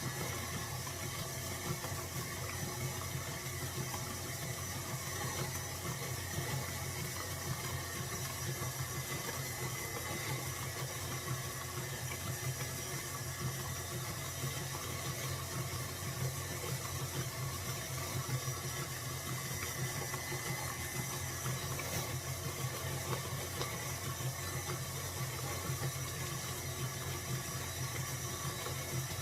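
Electric stand mixer running steadily at low speed, beating cultured sour cream as it churns toward butter.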